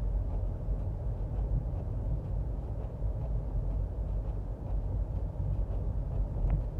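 Steady low road rumble and tyre noise heard inside a moving Toyota Prius, with a faint click near the end.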